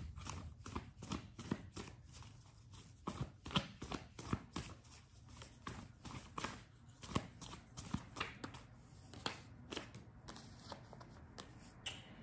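A deck of tarot cards being shuffled by hand: a run of soft, irregular card snaps and flicks, a few a second.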